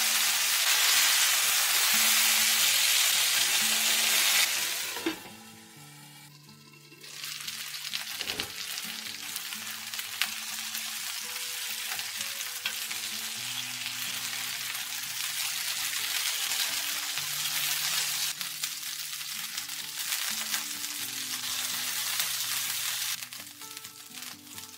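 Chicken thighs dusted with potato starch sizzling as they fry in a thin layer of olive oil in a frying pan, with a metal spatula scraping and turning the pieces. The sizzle drops away for a couple of seconds about five seconds in, returns, and fades near the end.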